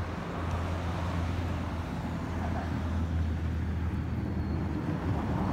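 Steady low hum of a motor vehicle's engine running, with road-traffic noise.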